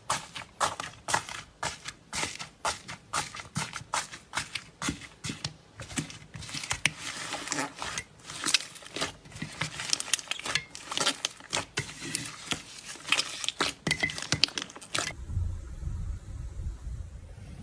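Slime being pressed and squeezed by hand, giving a quick, irregular run of crackling, popping clicks. About two and a half seconds before the end the clicking stops and a low hum takes over.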